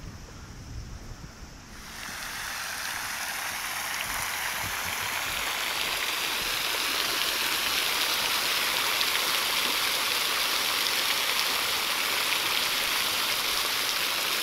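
Park fountain's water jets spraying and splashing down, a steady rushing hiss that comes in about two seconds in and grows louder over the next few seconds.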